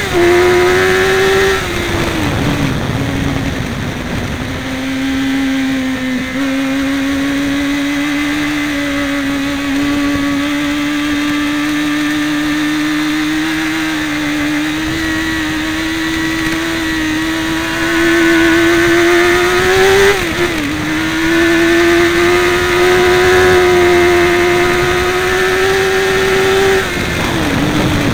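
Motorcycle engine running under load on a race track, with wind rush over the screen. The engine note drops about two seconds in and climbs slowly for a long stretch. Around twenty seconds in it dips sharply and climbs again, then falls away near the end as the bike slows.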